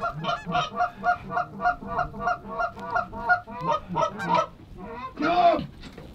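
Geese honking: a fast, even run of short clucking honks, about three a second, then a few looser calls and one louder, drawn-out honk near the end.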